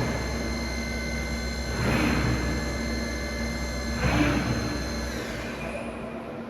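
Wagner CNC machining centre running with several steady high whines over a low hum, and a swell of noise about every two seconds. A little after five seconds in, the whines and hum die away, leaving a faint hiss.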